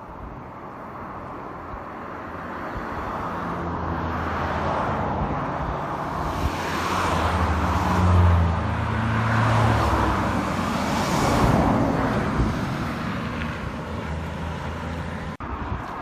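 Road traffic: motor vehicles passing on the road, engine hum and tyre noise building up and peaking twice, about eight and eleven seconds in, then fading.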